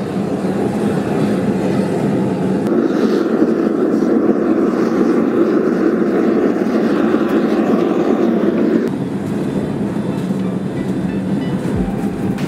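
Gas burner of a homemade metal-melting furnace running with a steady rush, louder for several seconds in the middle.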